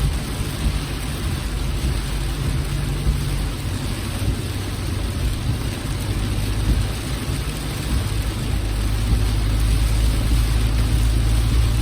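Steady rain on a moving car, with a low rumble of engine and road noise that grows a little louder about two thirds of the way in.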